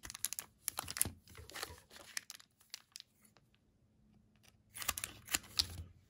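Crinkling and crackling of a trading-card pack's wrapper being handled, then, after a short pause, a cluster of sharp clicks near the end as scissors snip the top off the pack.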